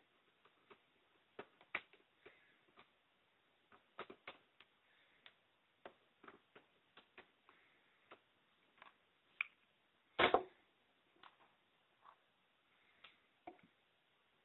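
Faint, irregular small clicks and ticks of a screwdriver working tiny screws out of a laptop's keyboard panel, with one louder knock about ten seconds in.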